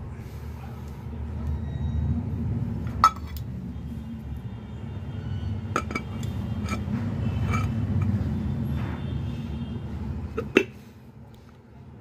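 Metal parts of a ceiling fan clinking and knocking as they are handled and fitted back together: a handful of sharp clinks, the loudest about three seconds in and near the end, over a low rumble.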